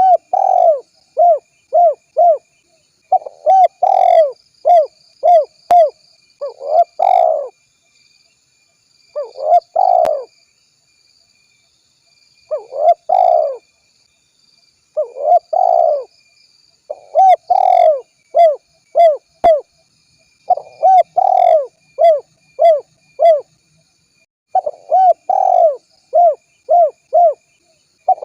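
Spotted dove cooing, a repeated series of phrases each made of several short coos, with pauses of a second or two between phrases.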